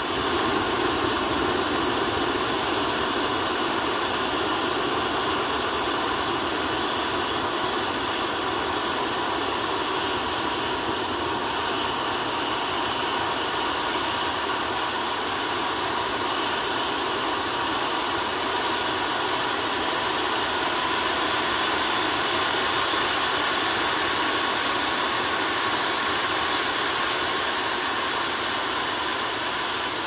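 Homemade turbo burn barrel running like a turbojet: its 6.0 Powerstroke diesel turbocharger spins steadily with a high whine over a loud, even rush of air and burning fire.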